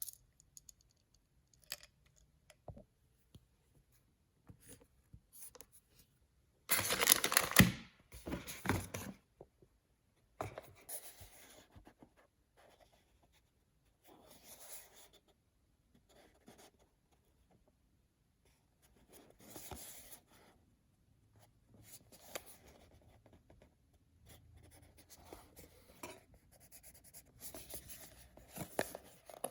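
Paper packaging being handled and torn open: scattered small taps and scratches, with a loud burst of tearing and rustling about seven seconds in and shorter bursts of scratching and rustling later on.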